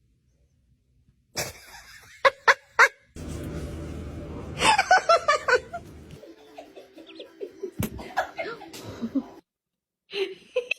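A person laughing in quick repeated bursts, among short clicks and knocks, with brief silent gaps between clips.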